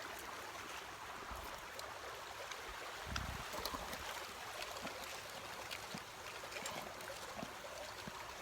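A small stream running steadily, with scattered faint ticks and a short low thump about three seconds in.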